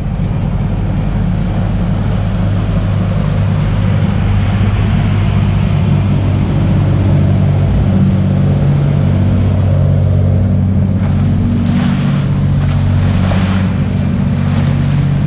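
A boat's engine running steadily under way, mixed with wind on the microphone and rushing water.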